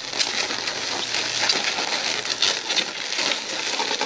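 Latex modelling balloons (260Q) rubbing against each other and the hands as the wing balloon is pushed through and twisted onto the dragonfly body: a steady scratchy rustle made of many short squeaky strokes.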